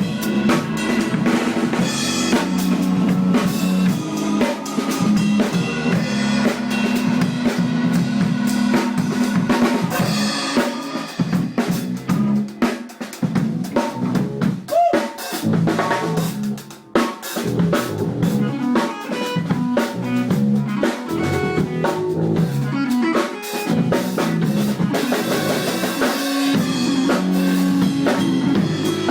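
Band music driven by a drum kit with snare and bass drum. The texture thins to a sparser, quieter break about twelve to seventeen seconds in, then the full band comes back in.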